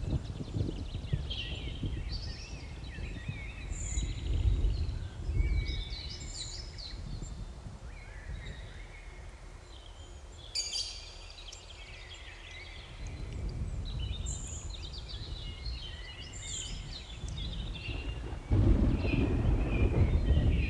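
Birds chirping and singing over a low, rumbling background noise, which grows suddenly louder near the end.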